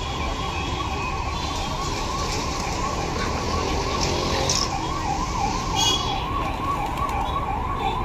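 A siren wailing in a fast, regular up-and-down warble, about two to three sweeps a second, over a steady background of street noise.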